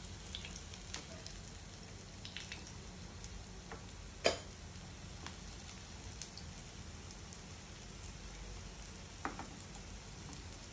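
Aloo tikki (potato patties) shallow-frying in oil in a pan: a steady soft sizzle with scattered crackles and sharp clicks, the loudest about four seconds in and another near the end.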